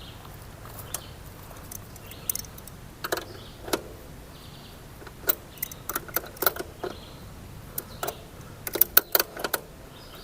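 Scattered metallic clicks and clinks of an adjustable wrench on a Honda Rebel 500's chain-adjuster lock nut, coming in loose clusters, busiest near the end, as the nut is loosened.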